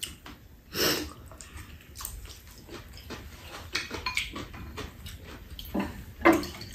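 Eating at a table: metal spoon and chopsticks clinking and scraping against ceramic bowls, with chewing. There are scattered small clicks and two louder short sounds, one about a second in and one near the end.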